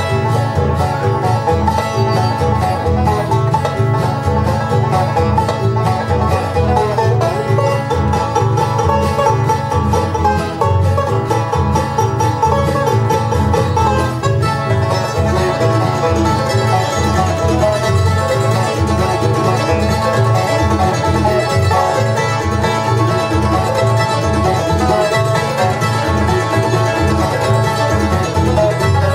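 Background music: a bluegrass-style instrumental led by a rapidly picked banjo, playing steadily throughout.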